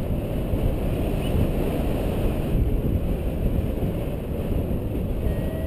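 Wind rushing over the camera microphone of a tandem paraglider in flight, a steady low buffeting. Near the end a flight variometer starts to beep in short repeated tones, signalling that the glider is climbing.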